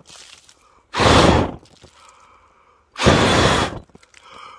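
Two hard puffs of breath blown at the flame of a small titanium alcohol stove, one about a second in and one near three seconds, in an attempt to blow it out; the flame stays lit.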